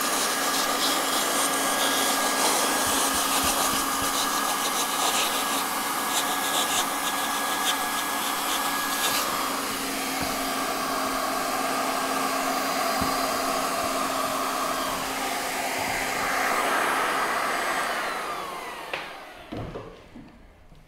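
Hand-held hot-air plastic welding gun blowing steadily with a constant fan whine as a plastic gutter liner is heat-welded and rolled into the seam. Near the end its whine drops in pitch and the sound dies away as the gun winds down.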